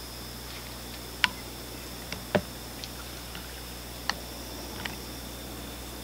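North American beaver feeding at a fallen tree in the water: a handful of short sharp clicks and snaps of gnawing and twigs breaking, about six in all, the loudest about two and a half seconds in, over a steady high hiss.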